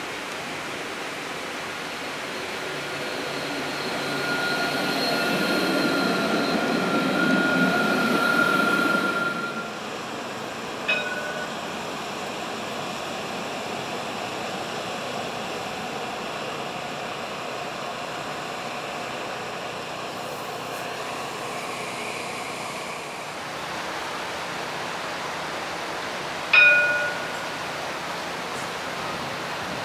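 An Alstom Citadis 302 electric tram passes, its rolling noise and a steady high whine swelling to a peak and then cutting off about nine seconds in. Later, over a steady street background, two short bell rings sound, the second louder, near the end.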